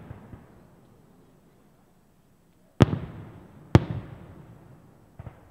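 Aerial firework shells bursting: two loud bangs about a second apart near the middle, each followed by a long echoing rumble, then two softer thuds near the end.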